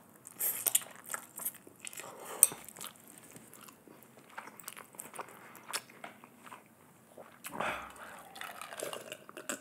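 Close-miked eating of spicy black bean fire noodles: a slurp, then chewing with wet mouth smacks and clicks. Near the end comes a drink from a glass of iced water.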